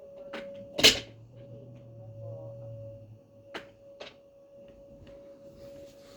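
A sharp knock just under a second in and a few lighter clicks, over a faint steady single-pitched tone that holds throughout.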